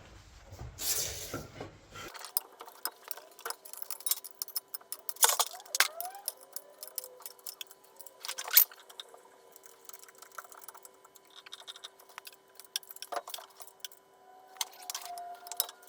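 Metal spanners and bolts clinking and rattling on a lathe's motor mount as the motor is levelled: scattered sharp clinks, a few of them louder. A faint steady hum sets in about two seconds in.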